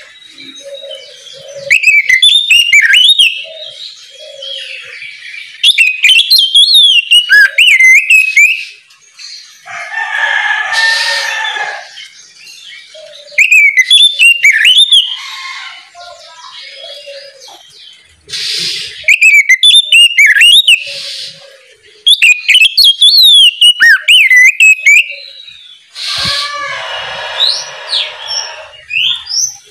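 Oriental magpie-robin (kacer) singing: loud bursts of rapid, varied whistled phrases a few seconds apart, with two longer harsh, raspy passages between them.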